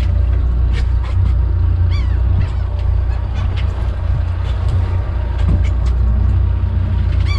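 Low steady rumble of the small trawl boat's engine running, with a few short rising-and-falling bird calls above it, the clearest about two seconds in.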